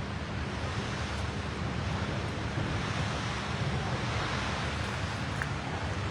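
Steady rushing noise with a deep rumble underneath, unbroken and even.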